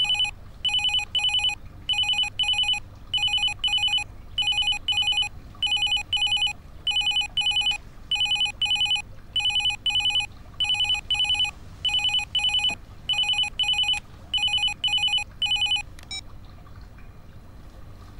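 Electronic telephone ringing in pairs of short, high, trilling rings, about one pair every second. It rings some fourteen times and then stops near the end, as the call is picked up.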